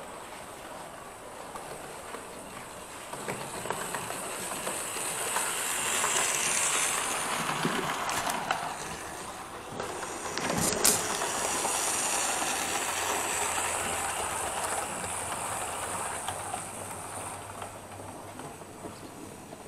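Electric model train running along the track past the microphone, its motor and wheels whirring. The sound grows louder over several seconds, with a few sharp clicks at its loudest, then fades away as the train moves off.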